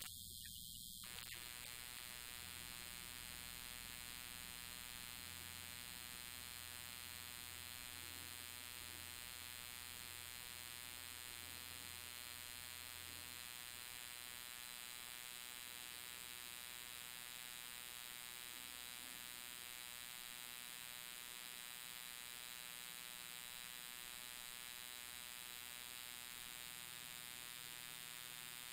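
Faint, steady electrical hum and buzz with many evenly spaced overtones; its lower part cuts in abruptly about a second in.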